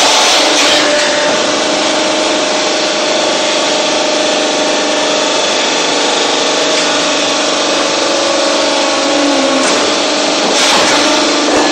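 Hydraulic press block-making machine running: a steady, loud mechanical noise with a constant hum, which shifts briefly near the end as the press moves.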